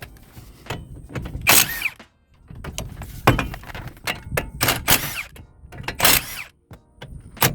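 Cordless Milwaukee M12 right-angle impact wrench hammering in several short bursts, a whine rising and falling in each, loosening the 15 mm wheel hub bolts.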